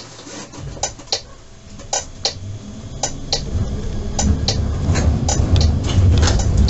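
Tram cab's turn-signal relay ticking, a click pair about once a second. Underneath, the low rumble of the tram's motors and wheels builds from about halfway in as the tram pulls away.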